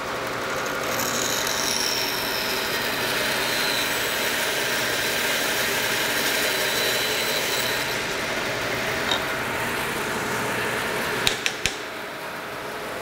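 Bandsaw running and cutting through the protruding end of a hickory axe handle and its walnut wedge, trimming them flush with the top of the axe head. The high hiss of the cut fades about eight seconds in while the saw keeps running, and a few sharp clicks come near the end.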